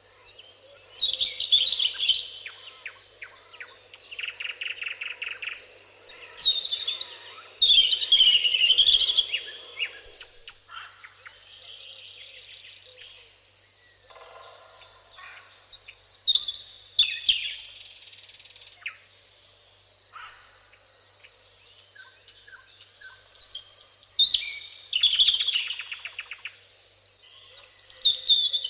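Several songbirds singing in a summer meadow, with loud chirping phrases and fast trills coming every few seconds. A steady high thin tone runs underneath throughout.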